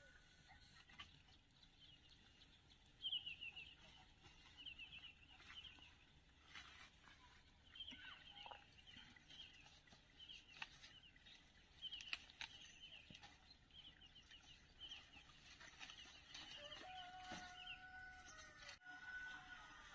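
Chickens clucking and chirping in short repeated notes, faint, with a rooster crowing once near the end.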